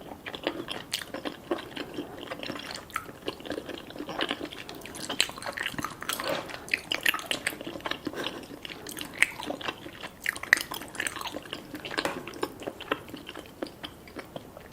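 A person chewing food close to the microphone, with many quick, irregular clicks and mouth sounds.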